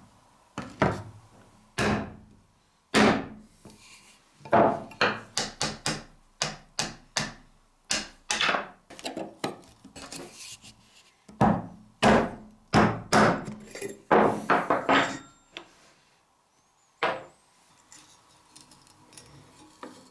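Hammer striking a steel pin punch to drive the old rivets out of a cleaver's wooden handle scales: dozens of sharp taps in irregular runs, then one last tap after a pause near the end.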